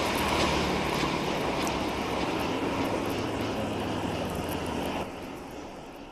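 Steady rumble and rush of traffic on a busy multi-lane road with a low engine drone. It drops in level about five seconds in and fades away.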